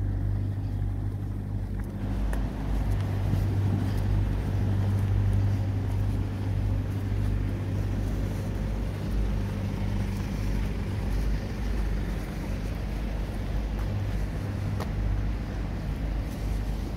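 Steady low rumble of outdoor street background noise, with a few faint clicks and no distinct event.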